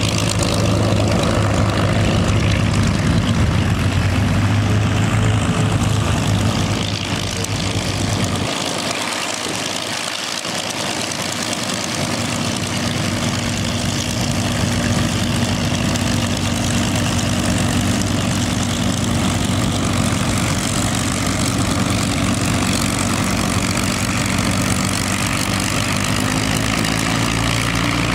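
Several WWII fighters' liquid-cooled V-12 piston engines running at low taxi power with propellers turning: a P-40 Kittyhawk, then a P-51 Mustang's Merlin passing close. A steady, even running note, with the deep rumble dipping for a few seconds about a third of the way in.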